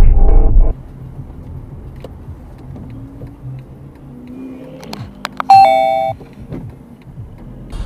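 Quiet car cabin and road noise, then about five and a half seconds in a loud two-note chime, a higher note stepping down to a lower one and fading within about half a second, like a ding-dong. Loud electronic music cuts off under a second in.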